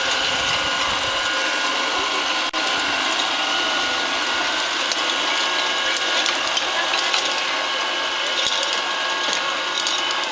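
Homemade well-drilling rig running: its motor and chain-and-sprocket drive turn the drill pipe with a steady whine over a busy mechanical rattle.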